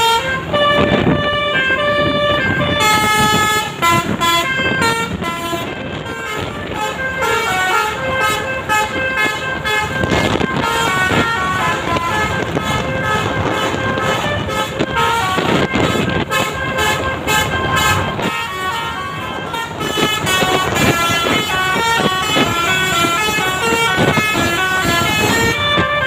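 Basuri telolet multi-tone horn on a tour bus playing a quick melody of stepped notes, several tones sounding together, with short breaks.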